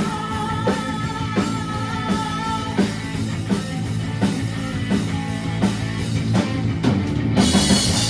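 Rock band playing: a drum kit keeps a steady beat, about one hit every 0.7 seconds, under electric guitar and bass. Near the end it builds to a loud cymbal crash as the song finishes.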